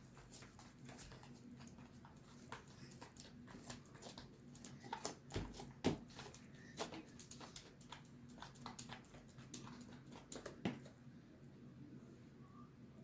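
Faint, irregular small clicks, crackles and light taps of hands working sticky slime and handling its materials, a little louder twice in the middle, over a low steady hum.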